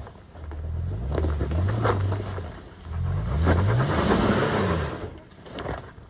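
Toyota 4x4's engine revving up and down in about three swells under load as it climbs a rocky slope, with tyres scrabbling and crunching over loose stones. The engine note drops away about five seconds in.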